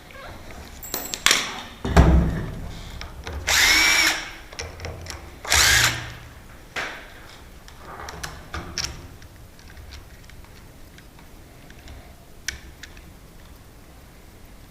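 Power drill running twice briefly, the first run a little under a second and the second about half a second, its motor pitch rising and falling. A heavy knock comes just before, and lighter clicks and taps of tool work follow.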